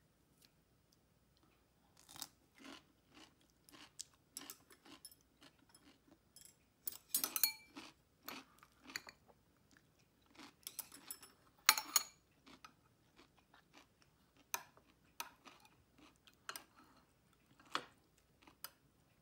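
Eating at a table: metal chopsticks clicking irregularly against plates and bowls, mixed with crunching bites. The clicks bunch up about seven seconds in, and the sharpest comes about twelve seconds in.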